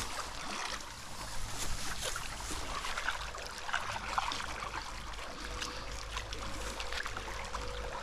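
Small stream flowing and rippling in a steady rush, with scattered faint rustles and ticks as a magnet-fishing rope is handled and drawn in over the grass.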